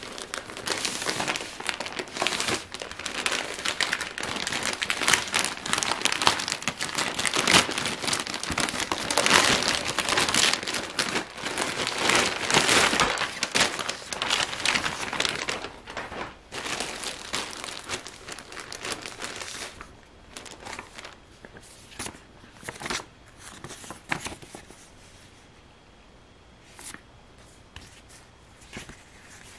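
Thin plastic packaging, a white poly mailer bag and a clear plastic bag, crinkling as hands open it and pull out the contents: a dense, continuous crinkle for most of the first twenty seconds, then only a few scattered crackles as the items are handled.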